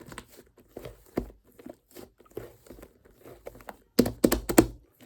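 Fluffy slime being pressed and squished by hand, giving sticky crackling and small pops, with a louder run of pops about four seconds in.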